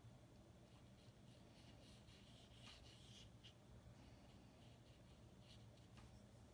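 Near silence: faint swishing of a watercolor brush dragged with clean water across watercolor paper, heard loudest about two and a half seconds in, over a low steady hum.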